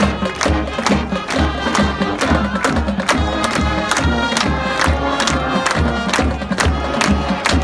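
High school marching band playing, with a steady, driving drum beat under the winds.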